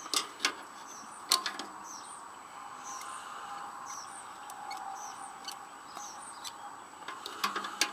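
Sharp metal clicks from locking pliers being worked and clamped on the rusty seat-bracket hardware, a few near the start and a quick cluster near the end. Underneath are a steady insect drone and small bird chirps.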